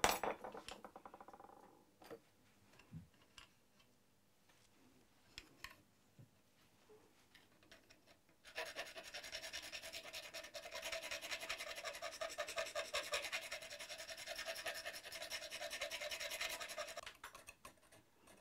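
Small needle file rasping back and forth on mother of pearl, clearing cured super glue from inside a tuner key's shaped hole. A brief burst of quick strokes at the start and a few light clicks, then a long run of rapid filing strokes from about eight seconds in until near the end.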